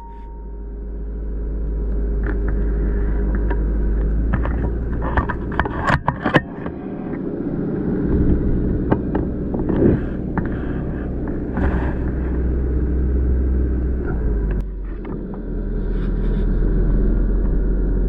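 A steady low rumble, with scattered knocks and clicks as the scope-mounted rifle is handled and swung to a new target.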